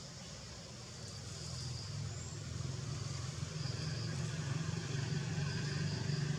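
A motor vehicle's engine running, a steady low hum that grows gradually louder.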